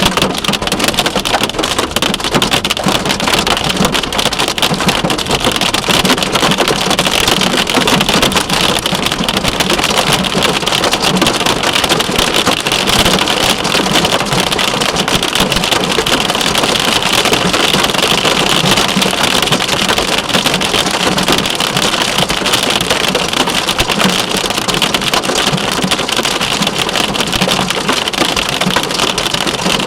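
Heavy rain and hail pelting a car, a loud, dense, steady patter of impacts.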